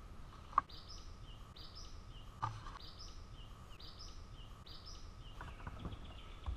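A songbird singing a short high two-part phrase, a rising note then a lower one, repeated about once a second over steady outdoor background noise. Two sharp clicks sound, one about half a second in, the other a couple of seconds later.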